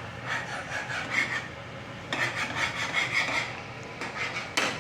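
Spatula scraping and stirring in a frying pan in two runs of quick rasping strokes, with a sharp click near the end.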